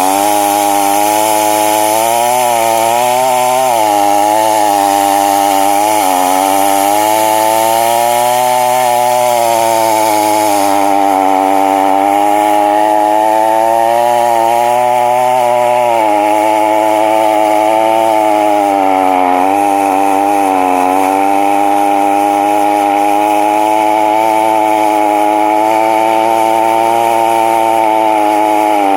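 Two-stroke chainsaw running at full throttle and cutting into a standing tree trunk while the felling notch is made. Its pitch repeatedly sags as the chain bites into the wood and then recovers.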